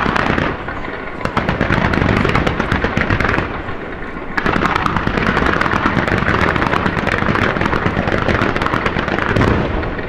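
Star mine fireworks barrage: aerial shells bursting in rapid succession with dense crackling. It comes in two long volleys with a short lull just under halfway.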